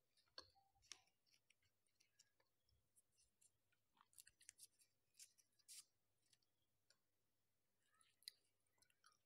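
Faint, scattered clicks and crinkles of a small plastic ice-cream cup being handled and its lid and seal pulled open.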